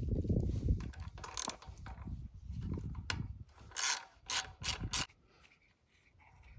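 Socket ratchet with a 10 mm socket clicking in short runs as it loosens nuts, with four sharper clicks between about four and five seconds in.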